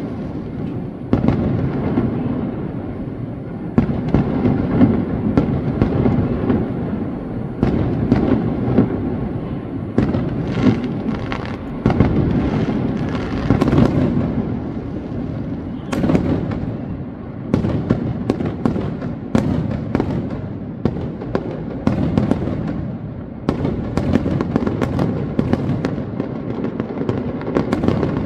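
Fireworks display: a continuous barrage of aerial shell bursts, many sharp bangs over a steady rumble.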